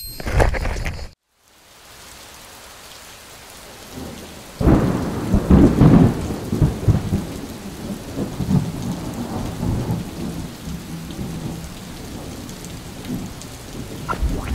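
Steady rain, then a sudden clap of thunder about four and a half seconds in that rolls on and slowly fades over several seconds.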